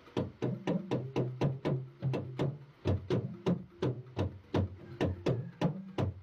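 Yoruba talking drum struck with a curved stick in a quick, steady rhythm of about four strokes a second, the low drum tone changing pitch from stroke to stroke as the cords are squeezed.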